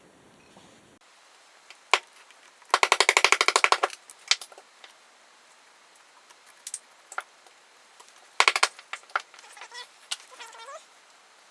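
Metal tools and small parts handled on a workbench: sharp clicks and clinks, with a quick run of about a dozen even clicks about three seconds in and another short burst of clicks later.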